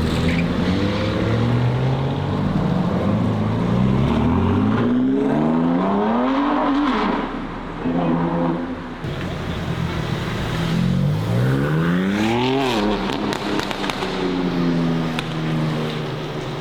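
A high-performance car engine revving hard, its pitch climbing steeply to a peak and then falling away twice, about seven and about twelve and a half seconds in.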